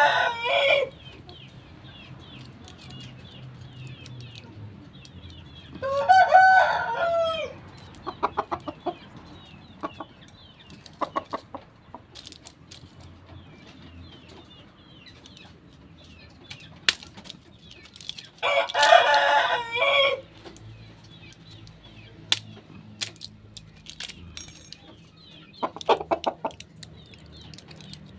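Roosters crowing: one crow ending just as the sound begins, another about six seconds in and a third about two-thirds of the way through, each lasting a second or two. Between them, hens clucking and scattered short clicks.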